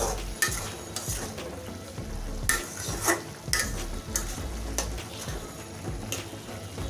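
A spatula stirring and scraping potato wedges and cooked-down tomato around a metal karahi, with irregular scrapes and clinks against the pan over a low sizzle from the low flame.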